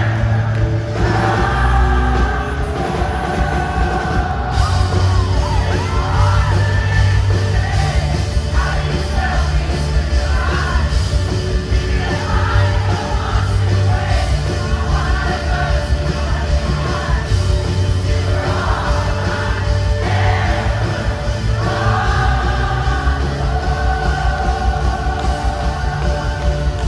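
Live rock band playing amplified music with singing, heard from within the audience in a large hall, with yells from the crowd.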